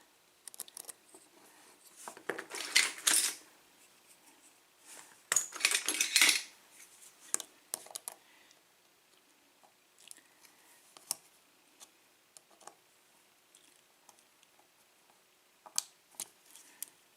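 Metal clicking and jangling as a picked Schlage lock is handled and worked with tools, with two louder spells of rattling about two and five seconds in and scattered small clicks between.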